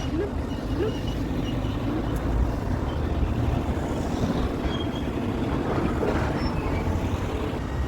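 Bucharest Metro line M2 train running, a steady rumble of wheels on the rails with faint high-pitched tones coming and going.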